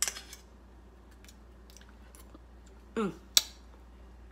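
A metal spoon scraping and tapping against a small bowl while wet sauce is spread onto burger patties, giving soft clicks. About three seconds in comes a brief murmur from a voice, then a sharp click, likely the utensil or bowl being set down on the counter.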